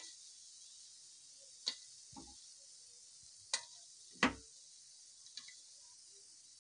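Cooked appe being picked out of a non-stick appe pan by hand and set on a steel plate: a few light clicks and soft thuds at irregular intervals, the loudest about four seconds in, over a faint steady hiss.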